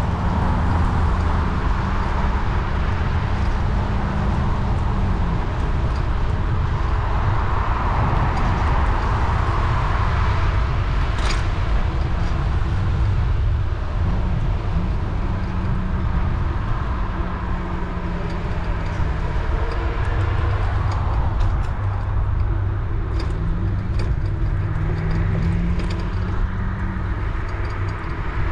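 Steady rush of wind and traffic noise heard from a moving bicycle, with the hum of passing vehicles swelling and fading about three times.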